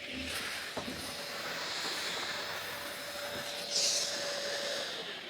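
Bagged vacuum cleaner running steadily with a whine, briefly louder and hissier about four seconds in as it sucks up debris, then starting to wind down with a falling pitch at the end.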